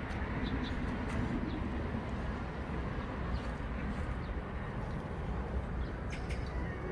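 Outdoor background ambience: a steady low rumble and hiss, with a few faint, short bird chirps.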